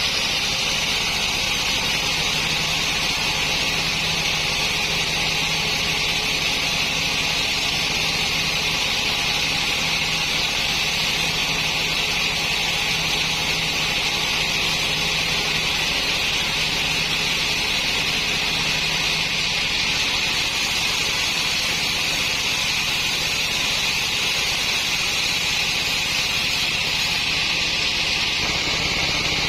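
Sawmill saw blade running steadily through a log: an even, high-pitched hissing whine with a low hum underneath, unbroken throughout.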